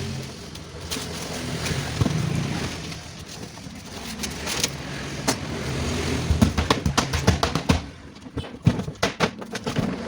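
A steady engine-like hum, then from about six seconds in a rapid, irregular run of clicks and knocks as metal parts of a scrapped two-door refrigerator are worked apart.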